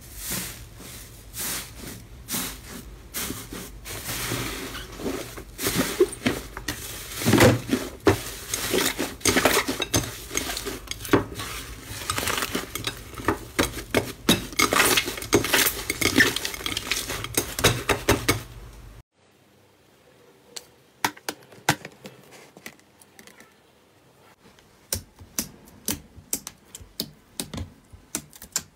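Slime being pressed and squeezed by hand, with a fast run of crackles and small pops as trapped air in a puffed-up slime dome gives way. About 19 s in it changes to quieter, sparser clicks and squishes.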